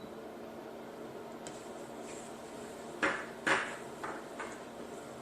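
Kitchen clatter: a steady low background with four sharp knocks of cookware and utensils, two loud ones about three seconds in and two lighter ones just after, as the sugar and soy sauce are stirred in the pan.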